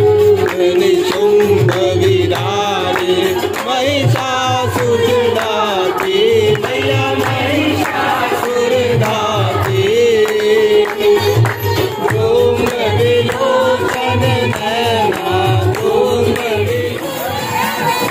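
Indian devotional song: a singing voice carrying a wavering melody over a steady drum beat.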